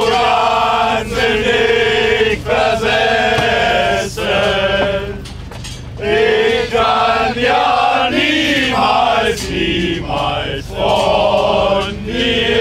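A group of men singing loudly together in unison, a chant-like song of held notes with short breaks between lines.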